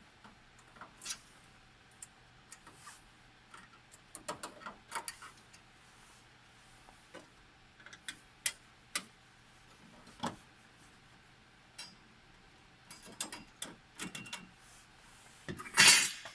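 Irregular clicks, taps and small knocks of parts and tools being handled while a hard drive is taken out of a Ricoh Aficio MP copier, over a faint steady hum. A louder clattering rattle comes near the end.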